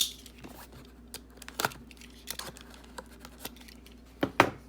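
Cardboard hanger box of football trading cards being handled and opened: scattered taps, scrapes and light tearing, with a louder pair of scrapes near the end.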